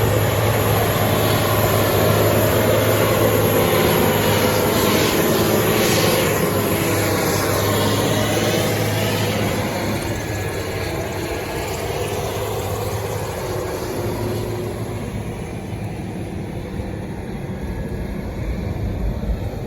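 Large Case Quadtrac tractor engine running steadily with a strong low hum. It shifts in pitch a few seconds in and eases off somewhat in the second half.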